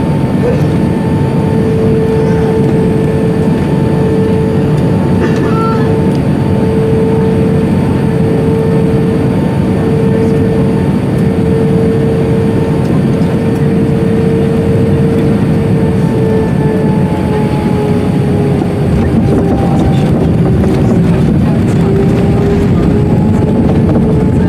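Cabin noise of an Airbus A319 landing and rolling out: a steady rush of engine and airflow noise with a steady whine, which dips a little in pitch about three quarters of the way through.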